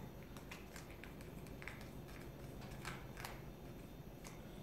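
Faint, irregular clicks and scrapes of a flat wooden stick stirring two-part XTC-3D epoxy coating in a small paper cup.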